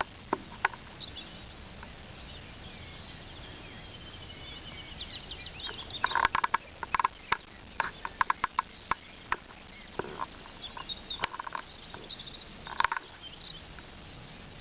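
Birds chirping, with clusters of short, sharp animal calls from about six seconds in until near the end.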